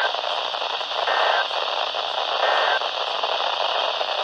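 EAS SAME header data bursts received over a static-filled radio signal: three short buzzing bursts about 1.3 s apart under a steady hiss. They mark the start of a severe thunderstorm warning.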